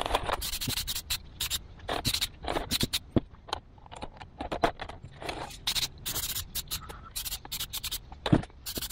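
Aerosol can of gray high-build primer spraying in many short hissing bursts of differing length.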